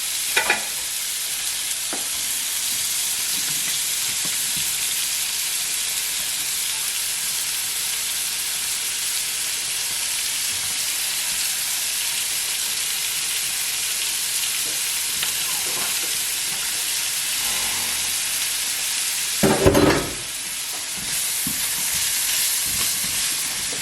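Onions sizzling steadily in hot olive oil in a frying pan as they cook to golden brown. Near the end there is a brief, louder sound, and the sizzle dips for a moment after it.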